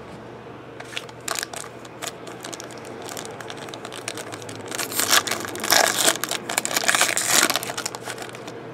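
Foil wrapper of a 2013 Tier One baseball card pack crinkling in the hands and being torn open, loudest about five to seven and a half seconds in.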